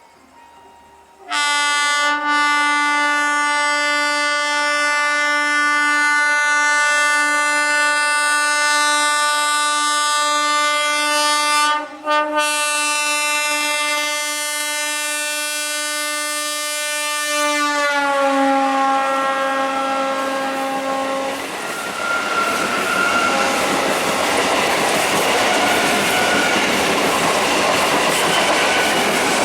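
Indian Railways train horn sounded in one long blast of about sixteen seconds, broken once briefly, falling slightly in pitch as the train reaches and passes. The train then runs by with the steady rush and clatter of wheels on rail.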